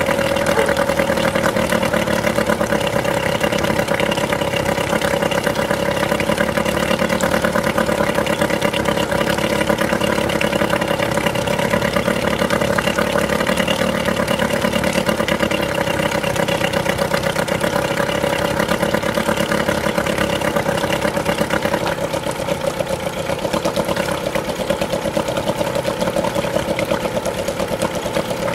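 1991 Evinrude 3 hp twin-cylinder two-stroke outboard running steadily after a cold start following ten years in storage. It gets slightly quieter about 22 seconds in.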